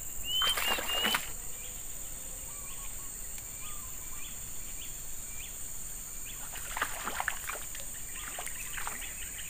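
Riverbank ambience: a steady high insect drone with a bird calling, clear whistled notes near the start, then short chirps repeated about every half second. A few faint brief rustles or splashes come near the end.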